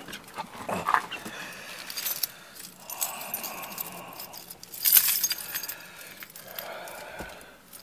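A bunch of keys jangling and clinking, amid scattered handling knocks and rustling, while the keys are searched for. There are louder clatters about a second in and about five seconds in.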